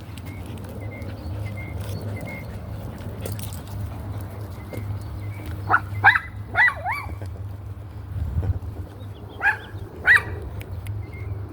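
Dog barking: four quick high-pitched barks a little past halfway, then two more a few seconds later, over a steady low hum.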